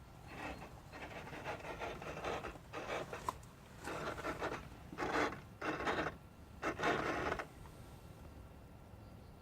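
A series of about seven short rasping, scratching noises over roughly seven seconds, irregularly spaced, then quiet. It is an unidentified noise from a VW Golf 6 1.6 TDI with the ignition on and the engine not running.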